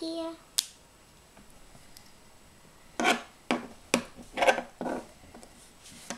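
Plastic LEGO bricks and plates being handled and pressed together, with a sharp click about half a second in and a cluster of clicks and rattles about three to five seconds in. A brief hummed note is heard right at the start.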